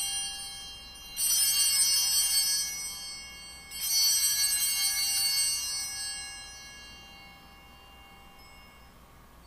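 Altar bells, a cluster of small bells shaken three times during the consecration to mark the elevation of the host. One ring is already sounding as it begins, the next comes about a second in and the last near four seconds in, then the ringing dies away.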